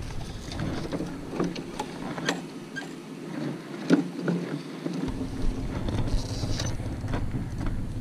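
Irregular knocks and rattles of a plastic lawn spreader as it is grabbed from the curb and wheeled across pavement.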